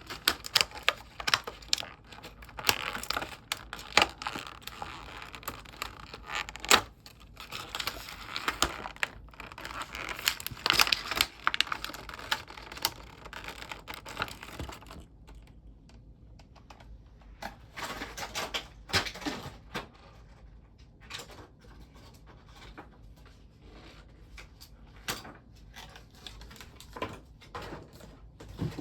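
Action figure packaging being handled and opened: crinkling and tearing with quick clicks, busy through the first half and sparser after that.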